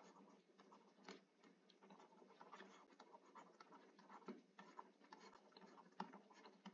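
Near silence with faint, irregular ticks and light scratches of a stylus writing on a tablet screen.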